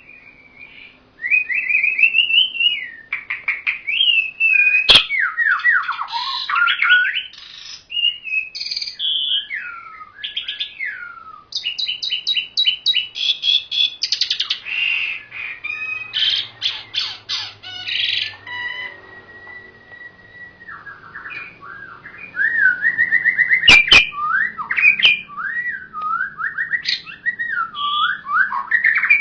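A caged pied starling (jalak uren) and white-rumped shama (murai batu) singing in a varied run of whistles, sliding notes and rapid trills, with a quieter stretch a little past the middle. Two sharp clicks stand out, about five seconds in and near the end.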